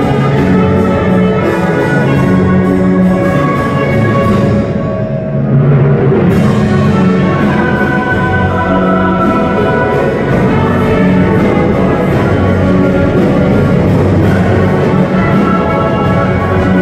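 Live orchestra playing sustained chords. The sound thins out briefly about five seconds in, then swells back fuller.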